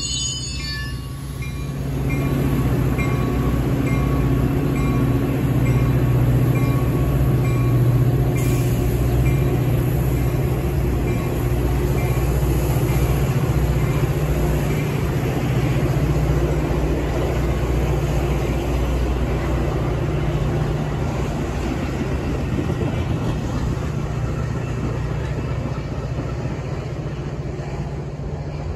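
Metra double-deck commuter train passing close, its diesel locomotive's engine running with a low steady drone over the rumble of wheels on rail. A high wheel squeal dies away about a second in. The sound swells to its loudest mid-way and eases off slowly as the train pulls away.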